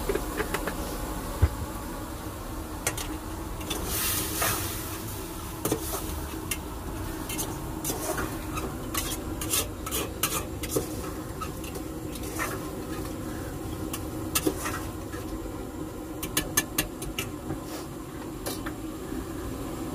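Spoon stirring and scraping in a cooking pot, with sharp clinks scattered throughout, over a steady hum. A brief hiss comes about four seconds in.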